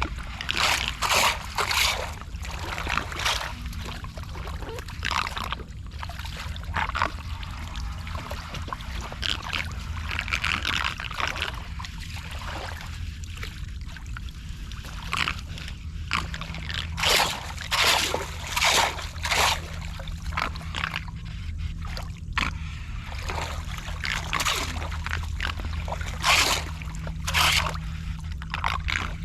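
Floodwater splashing and sloshing in a series of short strokes, some in quick runs of three or four, over a steady low rumble of moving water, as a blocked street drain is cleared.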